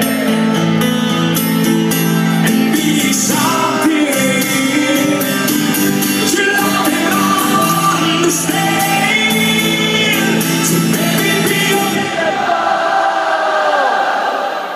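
Rock band playing live in an arena, heard loud and echoing through a phone's microphone: sung vocals over sustained guitar chords, drums and cymbals. The drums and low chords drop out about twelve seconds in, leaving the singing.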